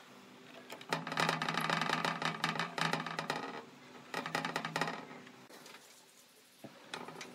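A screwdriver driving a screw through a steel hinge strap into a plywood toolbox, in two bursts of rapid clicking over a steady low hum, the second one shorter. A couple of light knocks follow near the end.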